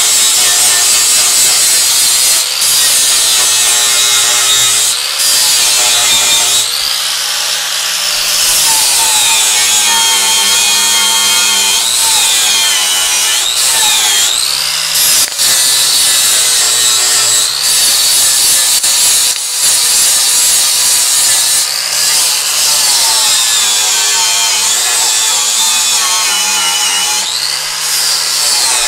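Angle grinder with a flap disc grinding down a steel weld bead on a chrome bumper, smoothing the weld. It runs continuously and loud, its motor pitch dipping and rising again many times as the disc bites into the metal and eases off, with a few very brief breaks.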